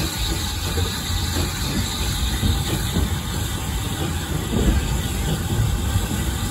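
A small steam tank engine hauling open wagons along the line, heard from inside an open wagon: the wheels rumble and clatter on the track while the engine hisses steam.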